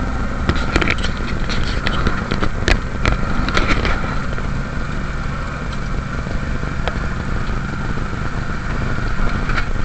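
Off-road truck engine running under throttle as the truck drives over rough ground. The cab knocks and rattles over the bumps during the first four seconds, then the engine runs on more evenly.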